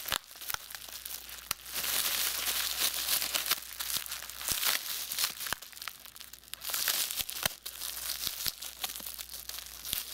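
Clear plastic wrap crinkling as hands handle a plastic-wrapped bundle of stainless steel kitchen utensils and work rubber bands off it, with a few sharp clicks among the rustling.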